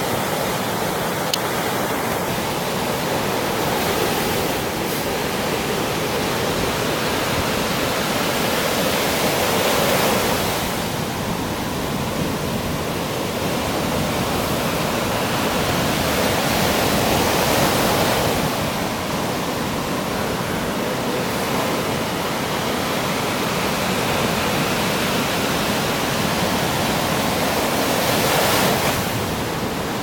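Sea surf breaking and washing up a sandy beach: a steady rush of water that swells louder several times as waves break.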